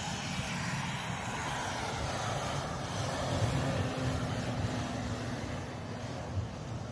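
Engine of a 4x4 SUV running steadily under load as it ploughs through deep snow, a continuous drone with no sudden changes.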